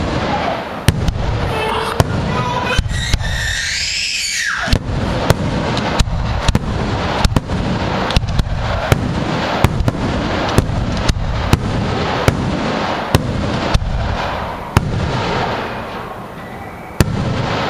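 Aerial fireworks bursting: a long irregular series of sharp bangs, roughly one to two a second, over a continuous dense noise. A high wailing sound rises and falls during the first four seconds.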